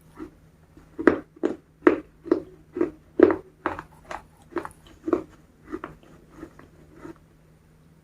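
Close-miked chewing of crispy KFC fried chicken: a regular run of crunches about two a second, growing fainter over the last few seconds and then stopping.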